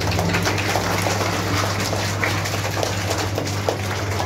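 A crowd of children and adults clapping and cheering in a packed room, a dense patter of claps and excited voices, over a steady low hum.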